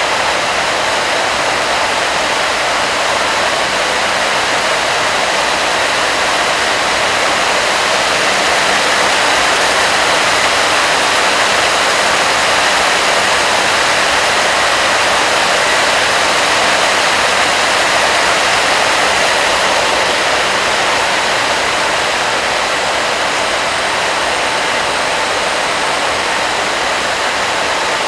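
Many circular looms for woven plastic bags running together: a loud, steady mechanical din, a dense even rush with no clear beat and faint steady whines on top.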